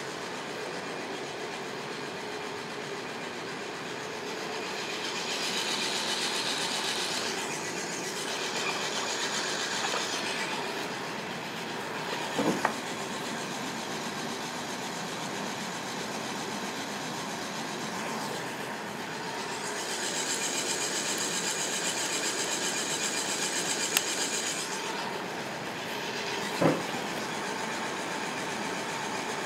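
Aillio Bullet coffee roaster running mid-roast, before first crack: a steady rattling whir of its turning drum and fans. Two stretches of louder hiss come and go, and a few sharp clicks sound in the second half.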